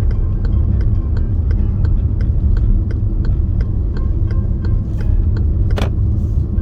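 Steady low rumble of a moving car heard from inside the cabin, with the car radio playing 25-string gayageum music: evenly plucked notes about three a second. One sharp snap cuts through about six seconds in.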